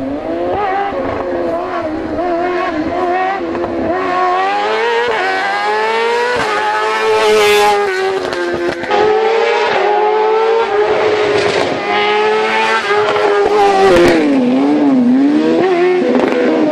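Fiat 500 hillclimb race car powered by a BMW S1000RR superbike inline-four, revving hard through a cone slalom. The engine note climbs in steps through quick upshifts, drops sharply about nine seconds in, and dips and rises again near the end as the driver lifts off and accelerates between the cones.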